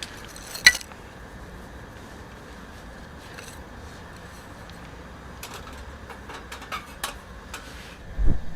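Handling sounds: one sharp clink about a second in, a few lighter clicks later, and a dull thud near the end.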